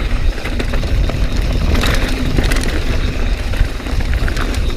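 Mountain bike riding fast down a rocky, loose-dirt singletrack: a steady heavy rumble of wind buffeting the microphone and tyre noise, with scattered clicks and rattles from the bike over rocks, busiest about two seconds in.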